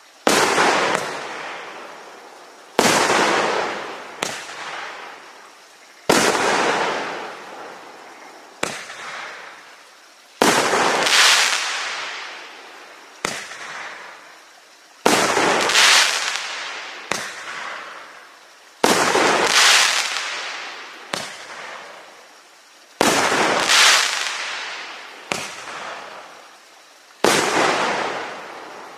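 A 22-shot, 1.2-inch consumer fireworks cake firing shot after shot, about one every two seconds. Each shot is a sharp bang followed by a crackling tail that fades over a second or two, with smaller pops in between.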